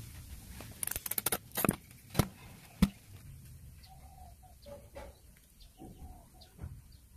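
A quick run of clicks about a second in, then two sharp clicks, the second the loudest. After that, faint short calls of birds in the background.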